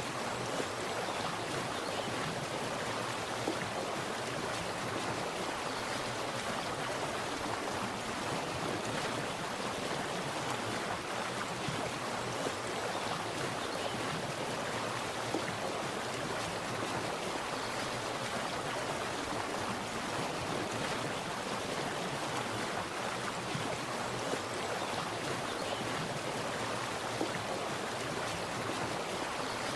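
Splashing water running steadily: an even rushing noise with the odd small splash standing out.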